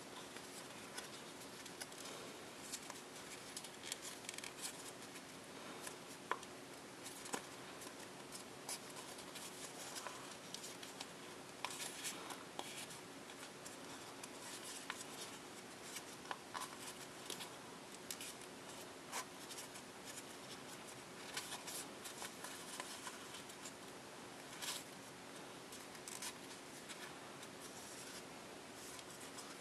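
Printed copy paper, folded as a dollar bill, crinkling and rustling under the fingers as it is creased and shaped: a string of short scratchy crackles, with a sharper snap about six seconds in, over a faint steady hum.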